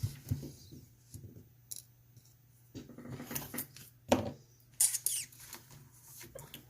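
Small metal clicks, taps and scrapes of a euro cylinder lock being handled as it is readied for gutting, with a sharper knock about four seconds in and a short scraping rattle just after.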